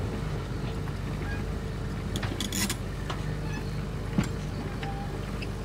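Cat 320C excavator's diesel engine running steadily as the machine works its boom and bucket. A few sharp clicks come about halfway through, and a single louder knock near the end.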